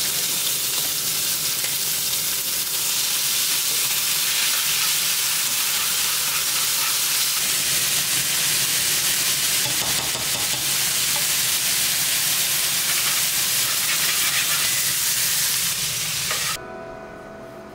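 Thinly sliced meat sizzling steadily in a nonstick frying pan, stirred with chopsticks as sauce and gochujang are added. The sizzle cuts off suddenly near the end.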